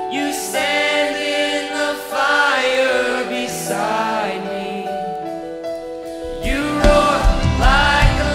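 Contemporary worship song, live: a young male voice sings over piano. About six seconds in, the drums and more voices come in and the band gets louder.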